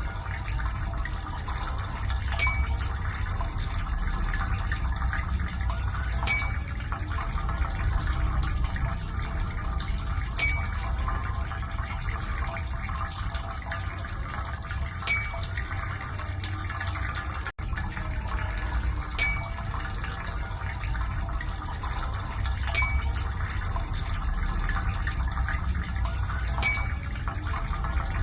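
Ear irrigation: water running steadily, with a short sharp click about every four seconds.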